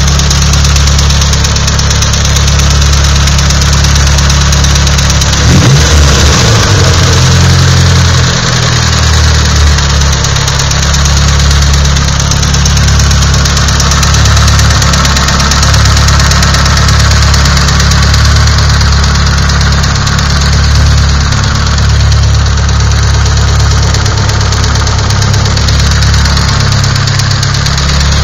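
Nissan SR20DET turbocharged four-cylinder engine idling with a knocking sound, revved briefly about five seconds in before settling back to a steady idle.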